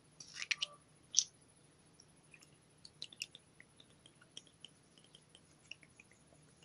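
Putty slime being mixed and worked by hand: two louder bursts in the first second or so, then many small, scattered clicks and pops.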